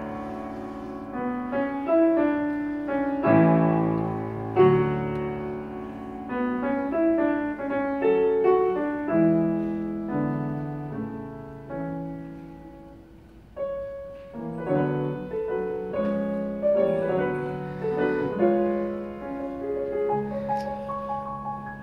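Solo piano played on a Yamaha grand piano: phrases of struck notes and chords that ring and die away, the playing growing quiet about twelve seconds in before a loud chord sets it going again.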